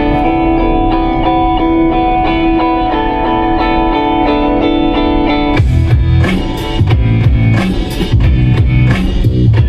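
Background music: held, ringing guitar chords, then drums and a full band come in a little past halfway with a steady beat.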